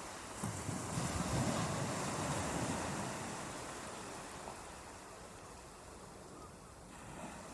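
Ocean surf: a wave breaks and washes in about half a second in, then slowly fades as it draws back.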